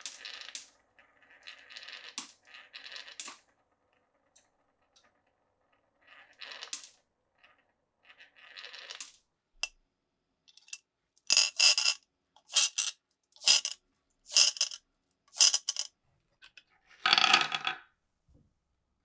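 Glass marbles running through a wooden marble run: soft rolling rattles at first, then five bright clacks about a second apart as marbles strike the wood, and a short, fuller rattle near the end.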